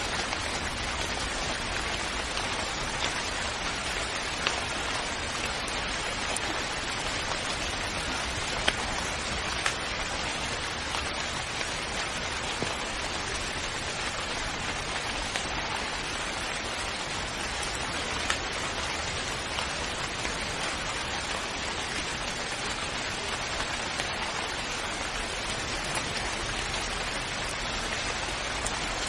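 Steady rain falling, a constant hiss with occasional single louder drops standing out.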